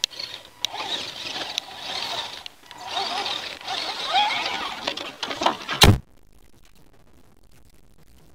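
Axial SCX10 RC crawler's electric motor and gears whining, the pitch rising and falling with short throttle blips as it climbs. About six seconds in, a sharp click, and the sound cuts off suddenly to a faint hiss.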